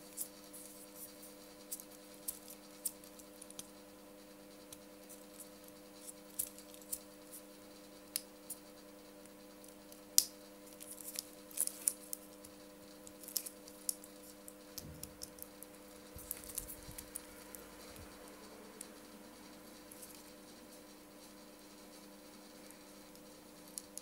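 Fingers handling a SKMEI 1335 digital watch and its metal link bracelet: scattered small clicks, ticks and rustles, the loudest click about ten seconds in and a busier cluster over the next several seconds, over a faint steady hum.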